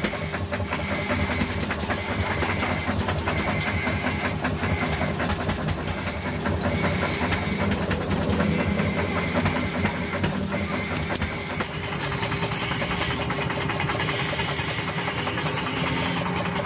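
Electric air blower of a coal forge running steadily, with the coal fire rushing under the forced-air blast.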